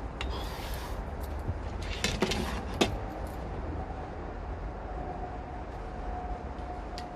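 Rifle slingbow with doubled TheraBand gold bands being handled and shot: a short rustle, then a quick run of clicks ending in one sharp snap about three seconds in, over steady wind rumble on the microphone.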